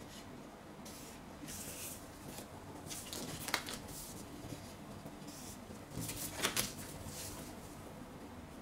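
Faint rustling and scraping of a marker drawing on pattern paper and plastic rulers being slid and set down on it, with a sharp tap about three and a half seconds in and a short cluster of taps around six seconds.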